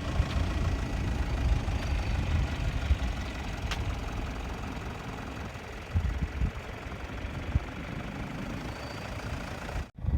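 Vehicle driving on a desert track: steady engine and road rumble with wind noise.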